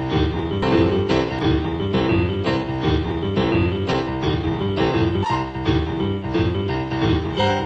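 Boogie-woogie piano playing an instrumental passage: a repeating bass pattern under chords, struck in a steady beat of about three strokes a second.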